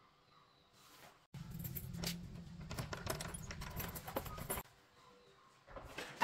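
Keys and a metal door lock being worked: a run of small metal clicks and jingles as a wooden door is unlocked, starting about a second in and stopping abruptly about three seconds later.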